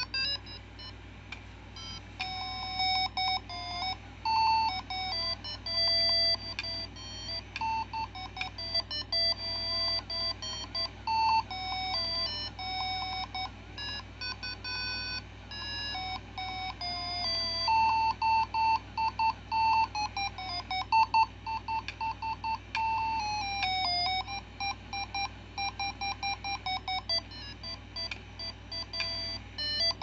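Tekno Polly robot parrot toy playing one of its built-in songs: a tinny electronic melody of short beeping notes, stepping up and down in quick runs.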